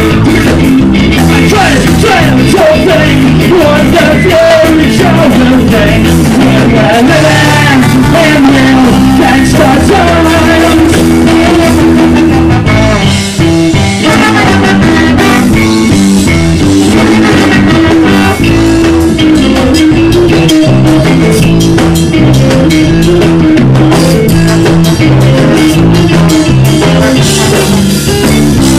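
Live ska band playing loudly: trombone, electric guitar and drum kit, with singing over the music. The band drops out briefly about thirteen seconds in.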